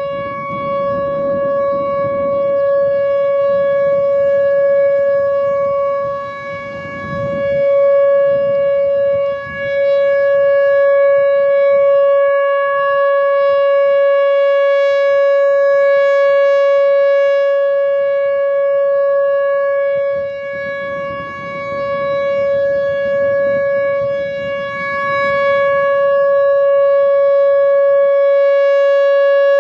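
Whelen Vortex rotating electronic outdoor warning siren sounding its alert signal, one steady unbroken tone. The level dips briefly twice, about 14 seconds apart, as the rotating head turns away and back.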